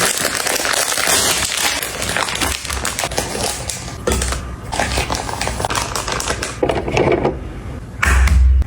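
Kitchen food-preparation sounds: dense rapid clicking and crackling, with a low thud about four seconds in and a heavier low-pitched knock near the end.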